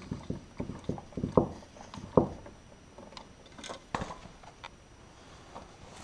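Scattered clicks and knocks of a screwdriver turning a side terminal screw on a Legrand slide dimmer switch, with the switch body rattling in the hand. The two sharpest knocks come about one and a half and two seconds in, with a few fainter ticks after.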